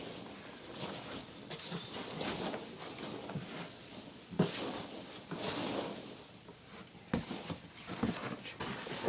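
Rustling and light knocks as a large nylon ALICE backpack on its metal frame is lifted out of its box and handled, packing peanuts shifting around it.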